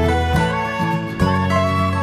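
Upbeat background music with plucked guitar-like strings over a steady bass, note changes about every half second.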